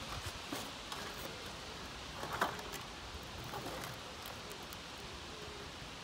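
Faint outdoor background noise with a few soft knocks and scrapes, the loudest a brief knock about two and a half seconds in.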